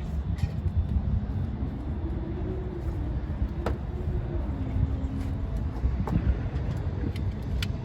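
Steady low rumble with a vehicle's engine note rising and then falling as it passes, and a few sharp clicks.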